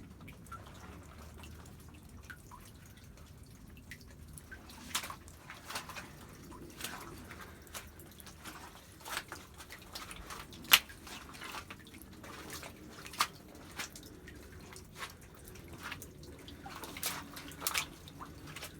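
Shallow, flowing creek water with a low steady trickle and irregular drips and small plops, roughly one a second, starting a few seconds in.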